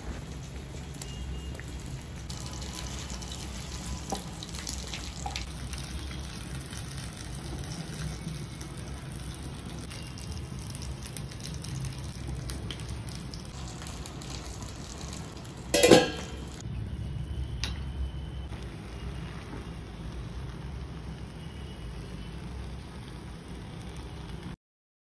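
Spiced broth simmering and bubbling in a pan on the stove, a steady hiss. About two-thirds of the way through there is one loud knock, and the sound cuts out briefly near the end.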